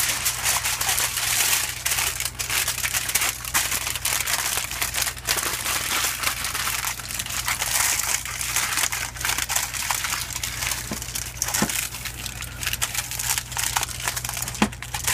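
Aluminium foil crinkling and crackling as hands fold and crimp it over the edges of a baking pan, in a continuous irregular rustle.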